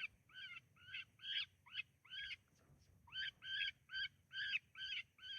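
Electronic predator call playing a prey-distress sound: a string of short, high cries, about two a second, with a pause about halfway through, used to lure coyotes.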